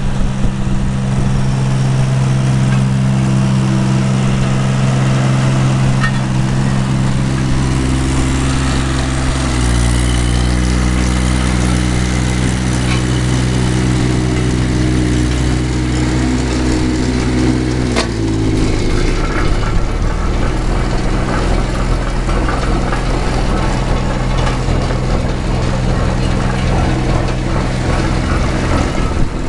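Wacker trench roller's diesel engine running steadily. About a third of the way in its note shifts to a different pitch, and at about 18 s a sharp click comes and the running sound turns rougher.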